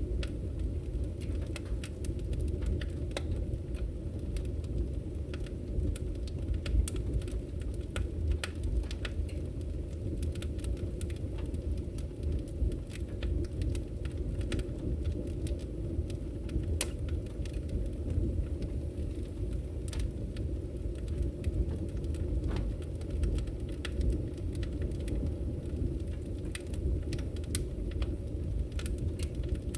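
Wood fire burning in a fireplace: a steady low rumble of the flames with frequent, irregular crackles and pops from the burning wood.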